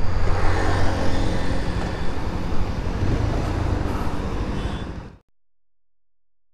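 Bajaj Pulsar 220F's single-cylinder engine running steadily while the bike is ridden, with road noise, easing off a little and then cutting off abruptly about five seconds in.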